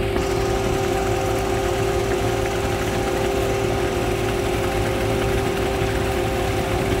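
Concrete mixer truck running steadily as its drum turns and discharges wet concrete down the rear chute: a constant low rumble with a steady whine over it.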